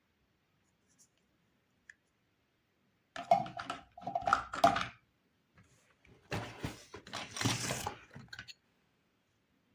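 Toy kitchen play set pieces and packaging being handled in two bouts of clattering and crinkling, about three seconds in and again about six seconds in.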